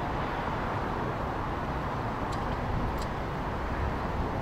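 Steady traffic and road noise: an even rumble of passing vehicles, with a couple of faint ticks about halfway through.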